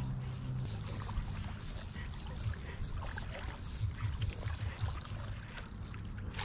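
Water swishing faintly around a wading angler's waders and landing net, over a steady low rumble.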